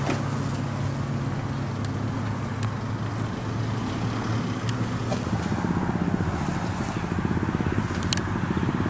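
Pickup truck engine running as the loaded truck drives slowly over grass: a steady low hum that turns a little louder and rougher past the middle. There is a sharp click near the end.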